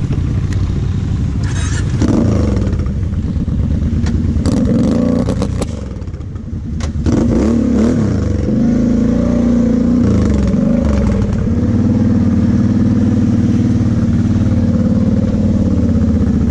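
Kawasaki KFX 700 V-Force quad's V-twin engine running as it is ridden slowly over rough ground, the throttle opened and eased several times; it drops off briefly around six seconds in, then revs up again. A few sharp rattles come through about five seconds in.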